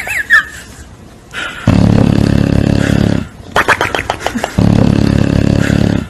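Bulldog snoring loudly: two long rumbling snores, each preceded by a run of rapid rattling clicks.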